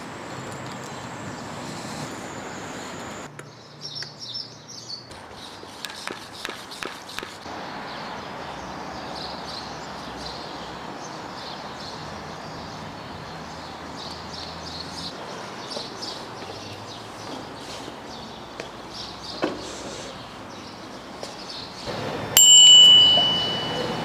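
Steady background noise with scattered clicks and faint high chirps, then near the end a single bicycle bell ding, a bright ring that fades out over a second or so.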